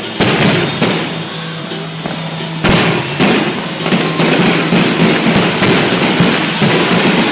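Fireworks finale: many shells bursting and crackling in quick succession, with a heavy bang about two and a half seconds in, over music playing along.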